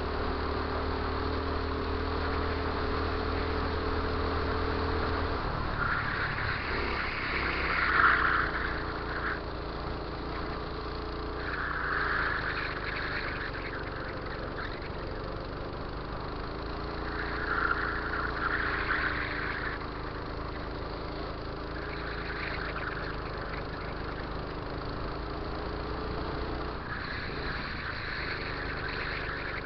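Go-kart engine running, heard from on board the moving kart, its pitch rising and falling as the kart speeds up and slows on the track. Several louder, higher-pitched passages come and go along the way.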